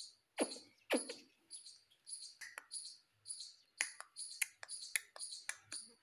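Indian ringneck parakeet chattering at its mirror reflection in a rapid run of short high chirps, with two louder calls falling in pitch in the first second.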